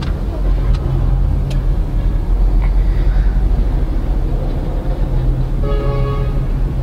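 Honda City's 1.5-litre i-VTEC engine idling steadily, heard from inside the cabin, with a brief electronic chime about six seconds in.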